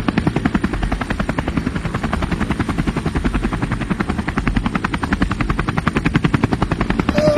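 Helicopter rotor running steadily, its blades chopping in a rapid, even beat.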